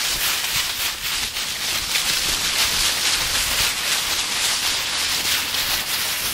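Dry fallen leaves crunching and rustling under the paws of several Siberian huskies and the walker's feet, a steady crackle with no pauses.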